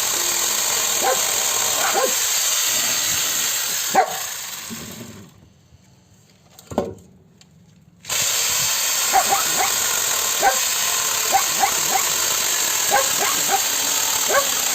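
Dogs barking repeatedly in short yaps over a steady high-pitched hiss. About halfway through, the sound fades almost to nothing for a few seconds, one bark breaks through, and then it all comes back.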